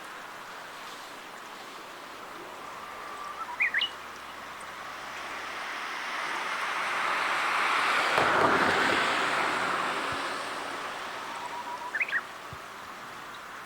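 Japanese bush warbler singing its "hoo-hokekyo" song twice, about three and a half seconds in and again near the end: a held whistle followed by a quick rising flourish. Between the two songs a car passes behind, its tyre noise swelling to a peak in the middle and fading as it moves across from one side to the other.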